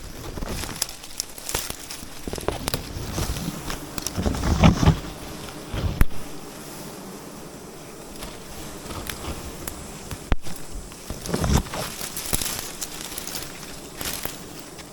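Irregular rustling, crackling and knocks from handling leaves and branches, with a few heavier thumps about four to six seconds in and again near eleven seconds, and wild bees buzzing.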